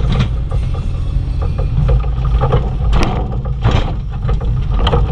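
Bobcat E35i compact excavator's diesel engine running steadily while it digs, with a string of light ticking clanks from the machine. Two louder scraping crashes come about three seconds in and again half a second later as the bucket works the ground.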